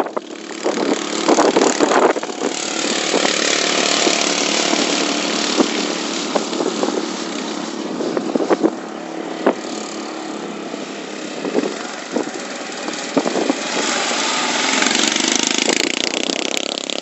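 Racing ride-on lawn mowers' engines running as they lap a dirt track. The sound grows louder as two mowers pass close near the end.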